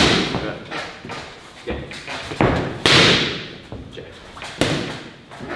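Boxing gloves smacking into focus mitts in a series of punches. Each strike is a sharp slap that echoes off the hall. The hardest one lands about three seconds in.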